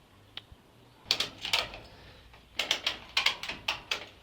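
A run of sharp clicks and light knocks in irregular clusters: a single one early, a few a second in, then a quicker string of about eight in the second half.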